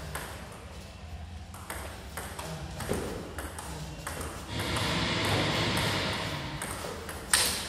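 Table tennis rally: the ball clicks back and forth off the bats and the table, with one sharper, louder hit near the end.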